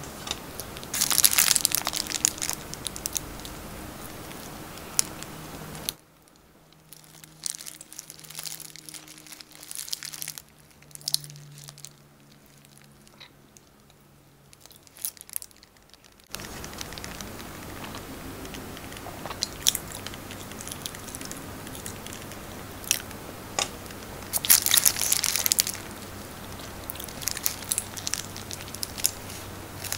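Close-miked eating sounds: chewing and mouth clicks from biting into a soft steamed pork bun (siopao asado), with a paper wrapper crinkling about a second in and again near the end.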